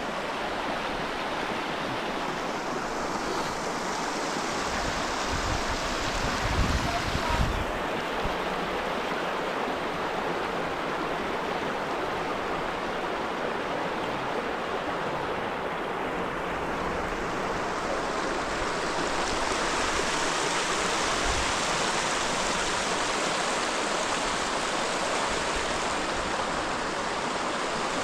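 Steady rush of flowing water from a stream or waterfall, with a few low buffeting rumbles about five to seven seconds in.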